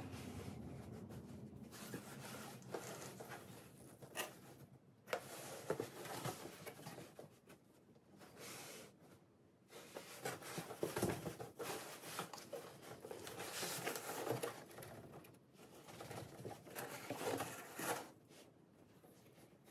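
Cardboard box rustling and scraping in irregular bursts as a person shifts about inside it and pushes hands through its cut-out holes.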